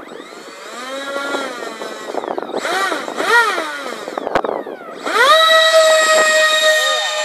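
Sebart MiG-29 RC model jet's electric motor whining up and down in two short throttle bursts, then a sharp click just past four seconds. About five seconds in the motor goes to full throttle and holds a steady high whine as the model launches off its ramp.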